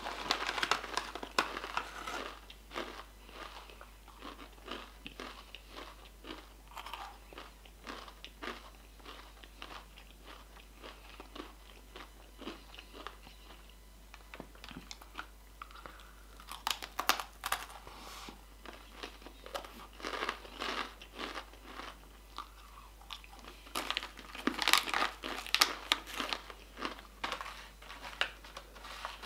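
Takis rolled corn tortilla chips being crunched and chewed close to the microphone: a steady run of crisp crunches, with louder clusters of bites about halfway through and again near the end.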